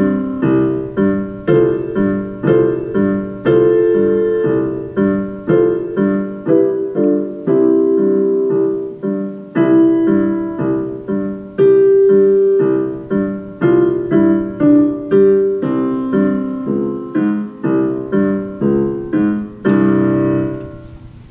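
Portable electronic keyboard played with a piano sound: a simple student piano piece in evenly spaced notes, about two to three a second. It ends near the close on a held chord that rings and fades away.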